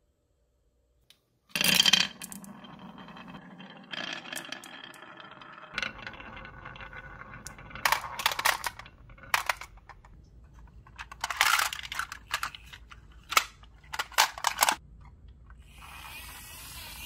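Marbles poured out with a clatter onto a wooden wave-shaped marble-run track, rolling and rumbling along the curves, then clacking sharply several times as they knock into one another and drop into a plastic toy garbage truck.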